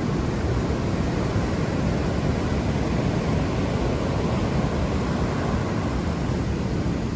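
Pacific Ocean surf: large waves breaking on the shore, heard as a steady rushing noise with a deep rumble underneath that does not let up.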